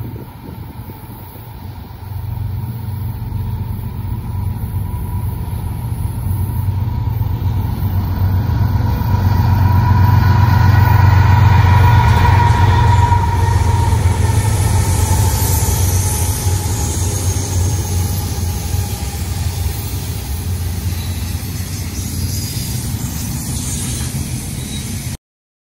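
A BNSF diesel freight locomotive approaches and passes, its low engine hum building to its loudest about ten seconds in. The wheels of double-stacked intermodal container cars then roll by, a little quieter. The sound cuts off suddenly just before the end.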